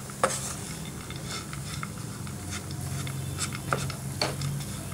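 Wooden spatula stirring and scraping a sticky date-and-nut mixture in a pan as it cooks down to bind, with scattered soft scrapes and a few sharp clicks, the sharpest about a quarter second in, over a low steady hum.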